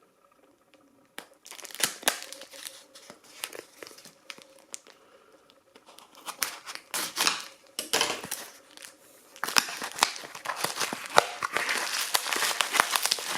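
Packaging being torn open and crinkled by hand: scattered crackling and tearing that starts about a second in and turns into steady, busy crinkling for the last few seconds.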